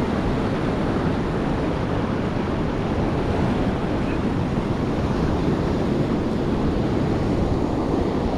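Ocean surf washing up a sandy beach, a steady rushing noise, with wind rumbling on the microphone.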